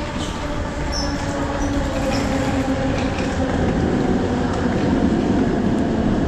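Electric train running on the rails, a steady rumble with a faint motor whine, growing gradually louder.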